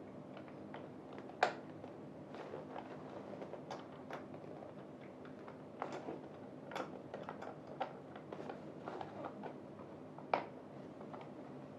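Light, irregular clicks and knocks of gaming-chair parts and tools being handled during assembly, with two sharper knocks, one about a second and a half in and one near the end, over a faint steady hum.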